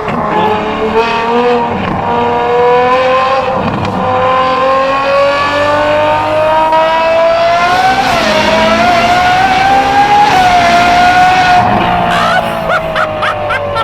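Ferrari 812 Superfast's 6.5-litre naturally aspirated V12, breathing through a Secret Apple exhaust, pulling hard with its pitch climbing slowly. There is a brief dip in pitch about eight seconds in. Near the end the pitch eases down as the throttle comes off, and the exhaust crackles and pops on the overrun.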